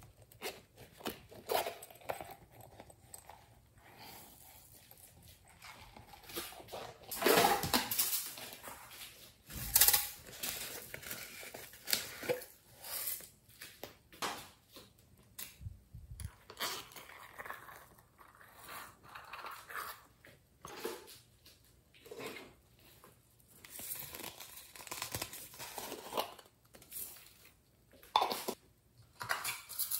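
Hands handling small plastic containers and packets of glitter and sequins over a glass dish of slime: irregular crinkling, clicks and taps, with louder clatters about seven and ten seconds in.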